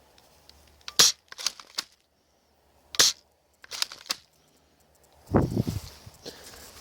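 Airsoft pump-action shotgun being worked: sharp plastic clacks in two groups of three, about two seconds apart, each a loud clack followed by two lighter ones. Near the end comes a duller rustling handling noise.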